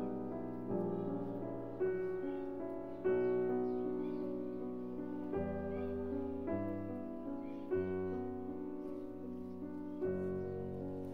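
Background instrumental music: slow piano chords, a new chord struck every one to two seconds and left to fade.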